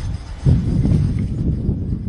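Tram passing close, a low rumble that jumps louder about half a second in.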